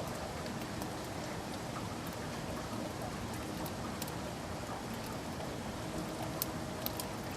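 Steady rain falling, an even hiss with scattered sharp drop ticks, a few louder drips near the end.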